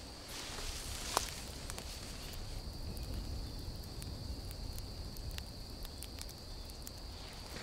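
Forest ambience: insects keep up a steady high-pitched drone over a low rumble. There is one sharp click about a second in and a few faint ticks later.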